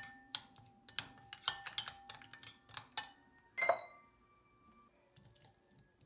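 Metal spoon clinking and scraping against a glass bowl while stirring a thick yogurt marinade: a quick run of ringing clinks that stops about four seconds in.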